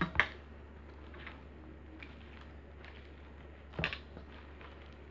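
Hand kneading and pressing a crumbly khoya, egg and flour dough in a metal tray: soft squishing and rubbing, with a short knock just after the start and another about four seconds in, over a steady low hum.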